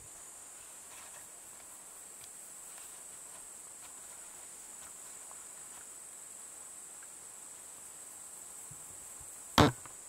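Insects chirring in a steady, high-pitched drone over a quiet forest background. One sharp click near the end.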